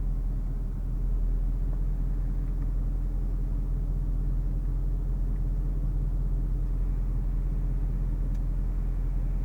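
2014 Range Rover Sport's supercharged V8 and the moving vehicle giving a steady low rumble, the engine humming at an even pitch with no revving; the level steps up slightly about a second in.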